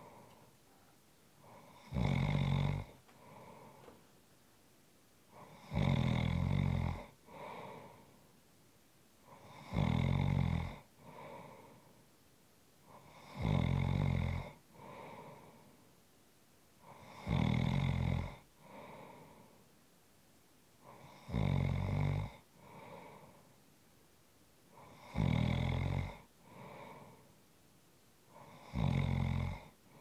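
A person snoring in a steady rhythm, about one snore every four seconds: each loud, low snore on the in-breath is followed by a softer, quieter out-breath.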